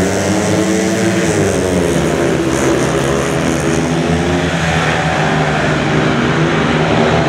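Four speedway bikes' 500 cc single-cylinder methanol engines revving hard together as they leave the start and race into the first bend, their pitches rising about a second in and several engine notes overlapping.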